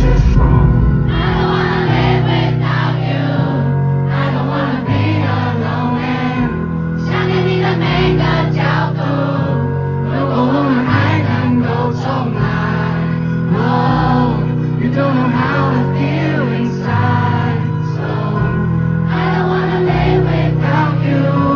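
Live pop song through a PA: a male voice singing over backing music with a bass line that steps from note to note every second or two, the crowd singing along.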